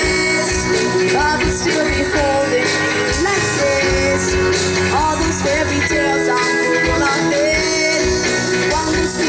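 A band playing a pop-rock song, with a steady drum beat under held notes and a melody line that slides up and down in pitch.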